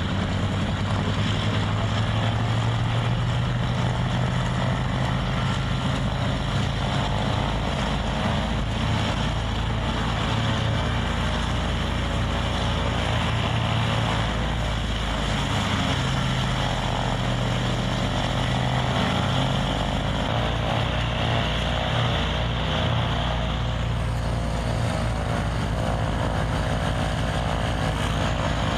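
Douglas C-47A's two Pratt & Whitney R-1830 Twin Wasp radial engines running steadily on the ground, a continuous low propeller drone.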